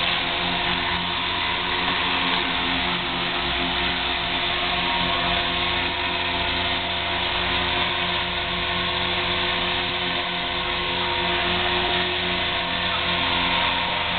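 Electric KDS 450 flybarless RC helicopter hovering, its motor, gears and rotor running at a steady pitch with several steady tones over the rotor noise.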